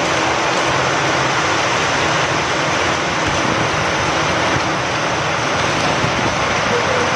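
Steady rain falling with wind, a loud, even hiss.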